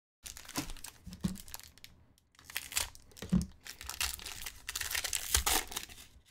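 Foil wrapper of a 2021 Topps Inception baseball card pack crinkling and tearing as it is ripped open by hand, in two spells of crackling with a short break about two seconds in.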